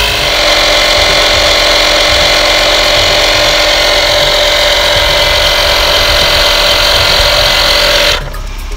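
DBPOWER 12V portable tyre-inflator air compressor running steadily under load as it pumps up a car tyre, switched off about eight seconds in, when it stops suddenly.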